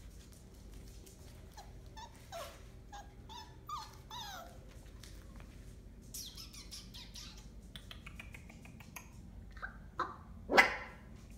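Five-week-old Entlebucher puppies whimpering and yipping: a string of short cries that fall in pitch, with one much louder bark or yelp about ten and a half seconds in.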